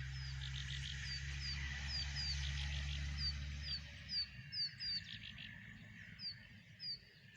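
Birds calling outdoors with short, repeated, downward-sliding chirps, several a second at times, over a faint steady high hum. A low rumble underneath fades out about four seconds in.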